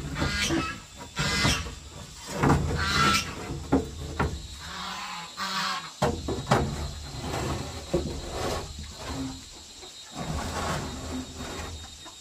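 Animal calls repeating every second or two.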